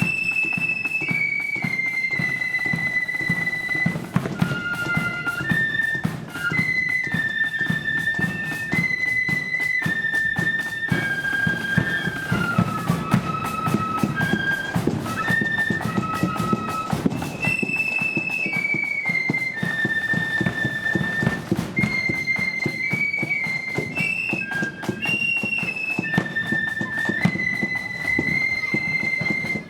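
Marching flute band playing a tune in unison on high-pitched flutes, with drums beating a steady, dense march rhythm underneath.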